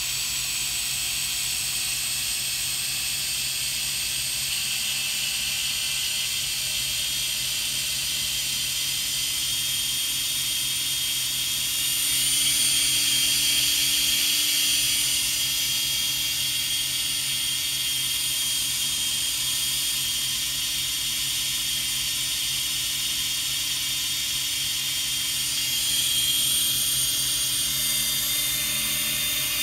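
Walkera F210 racing quadcopter's brushless motors spinning without propellers, a steady high-pitched whine that swells briefly twice. They keep running after the transmitter has been switched off: the failsafe is not cutting the motors.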